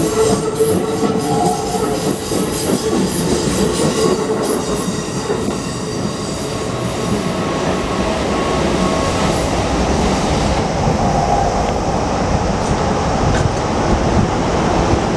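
Electric commuter trains running past on the tracks: a continuous loud rumble of wheels on rail, with thin high squealing tones from the wheels that die away about ten seconds in.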